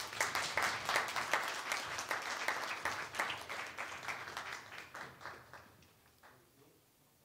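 Audience applauding, dense at first, then thinning out and dying away by about six seconds in.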